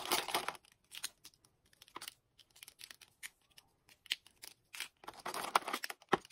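Plastic permanent markers handled and pulled out of a small cardboard box: irregular light clacks of the pens knocking together, with the cardboard rustling. A denser rustle comes about five seconds in, followed by a sharp click.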